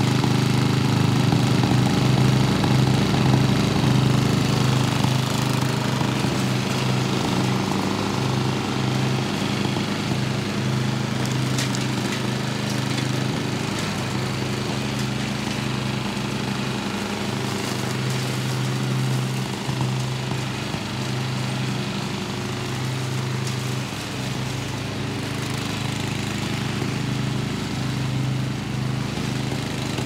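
Riding lawn mower cutting grass: its engine runs steadily under load with an even low hum, a little louder in the first few seconds.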